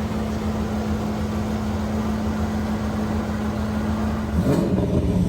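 2002 Pontiac Trans Am Firehawk's 5.7-litre LS1 V8 idling steadily, then revved briefly once near the end.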